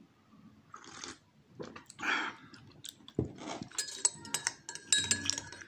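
Two slurping sips of hot tea about one and two seconds in, then a metal spoon stirring in a ceramic mug, clinking with short ringing ticks that come faster toward the end.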